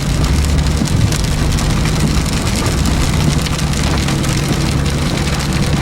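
Heavy rain falling on a car's roof and windshield, heard from inside the car, over the steady low hum of the car's engine and tyres.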